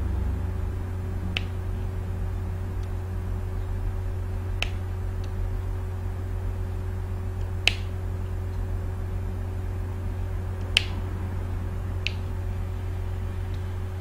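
Five sharp single clicks at a computer, spaced one to three seconds apart, over a steady low electrical hum.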